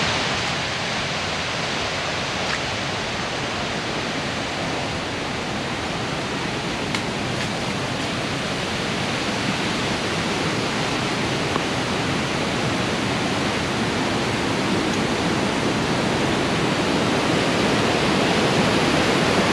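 Steady rush of a waterfall and the stream below it, a constant noise that grows louder toward the end as the footbridge over the gorge is crossed.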